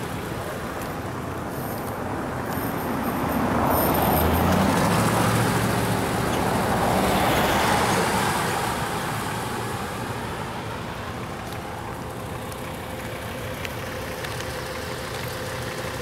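A car drives past on the road. Its engine and tyre noise rise over a few seconds and then fade away.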